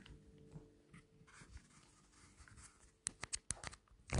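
Handling noise from a phone being fiddled with: faint scratching, then a quick run of about six sharp taps on the phone from about three seconds in, with a louder one at the end.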